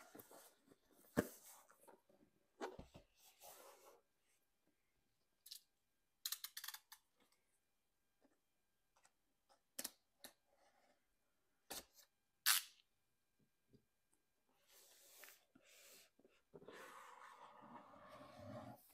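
Quiet handling of a cardboard microphone box by gloved hands: soft scrapes and taps as it is turned over, then several sharp clicks and snicks as a utility knife cuts its seals. Near the end comes a longer rustling scrape of cardboard as the box is worked open.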